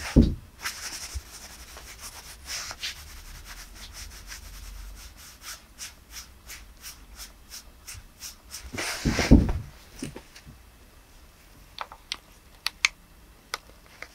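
Close-up rubbing and rustling of cloth on trousered legs, with scattered small taps and a louder thump about nine seconds in.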